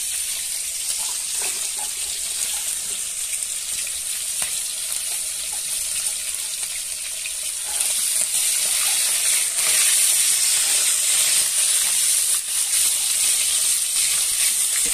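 Chicken pieces sizzling as they fry in hot oil in an aluminium kadai, turned now and then with a metal spatula. The sizzle is a steady hiss that gets louder about eight seconds in.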